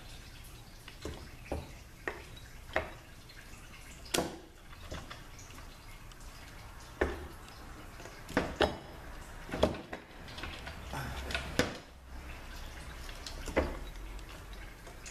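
Metal parts of a Ford 6F35 transmission being handled during teardown: scattered, irregular clinks and knocks, a few with a short metallic ring.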